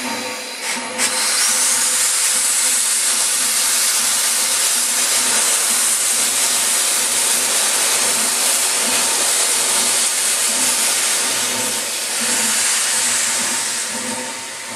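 East Broad Top narrow-gauge steam locomotive venting steam from low on its side in a loud, steady hiss that surges about a second in and eases slightly near the end.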